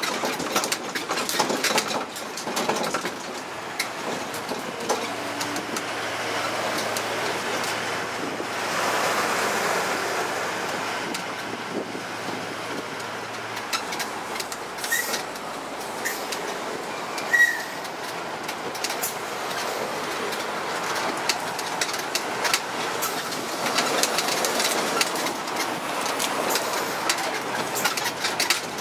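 Ride noise from an open carriage of a tourist mini road train on the move: a steady rumble with many small rattles and clicks throughout.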